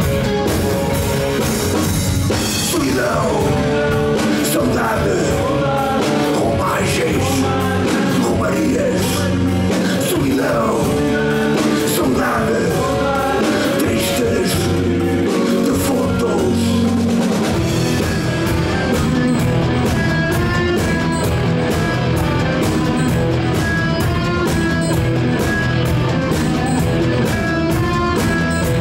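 Rock band playing live: electric guitars, bass and a drum kit. About 17 seconds in, the band moves into a denser, steadier beat with regular cymbal strokes.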